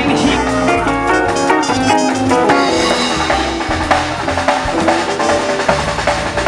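Live band playing a loud rock song: a drum kit keeping a steady beat under amplified guitars.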